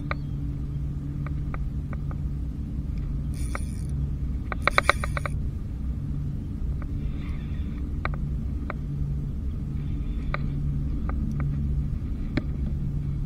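Spinning reel and rod handled during the fight with a hooked bluefish: a steady low rumble with scattered sharp clicks, and a quick run of rapid clicks about four to five seconds in.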